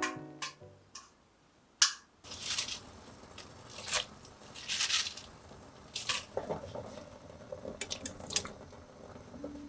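Kitchen food-prep sounds: scattered sharp clicks and knocks of utensils and containers, with soft handling noise between them, starting about two seconds in after the music stops.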